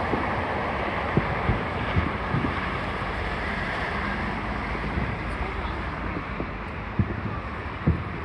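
Fireworks going off in the distance as scattered low thumps, a few early on and two near the end, over a steady background of crowd murmur and wind on the microphone.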